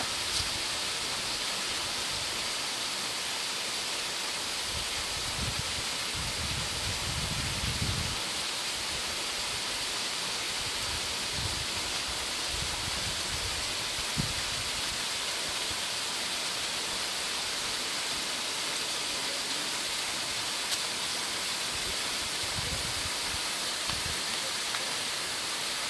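Small waterfall pouring into a rock pool: a steady rushing hiss of falling water. Brief low rumbles come through around seven seconds in and again near the end.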